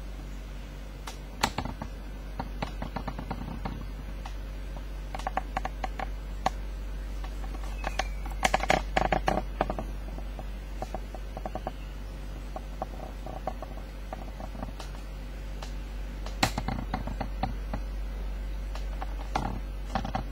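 Sneakers being handled: scattered taps, clicks and rustles in short clusters, over a steady low hum.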